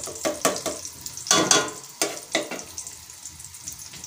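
Sliced onion sizzling in hot oil in a metal pot, being stirred with a steel ladle. Quick scraping strokes of the ladle against the pot run through the first two and a half seconds, the loudest about a second and a half in, and then the frying hiss goes on alone. The onion is being fried till lightly golden.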